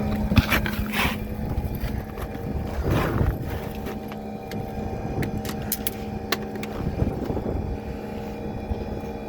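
Bryant gas package unit running with a steady motor hum, under low wind rumble on the microphone. Handling knocks sound about a second in and around three seconds, and a run of sharp clicks comes between about five and six and a half seconds.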